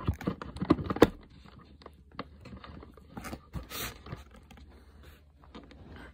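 Box packaging being handled and opened: a quick run of sharp clicks and crackles in the first second, then scattered lighter clicks and a short scraping rustle about four seconds in.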